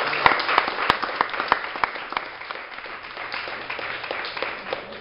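Small audience applauding, many individual claps, loudest at the start and dying away over a few seconds.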